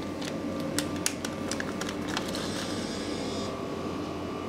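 A run of small, irregular clicks and taps from hands working a vending machine, over the steady hum of the machines, with a short hiss in the middle.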